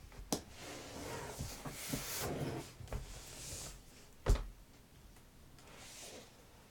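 Cardboard and foam packaging of a laptop box being handled, rustling and scraping, with a few clicks and one sharp knock about four seconds in.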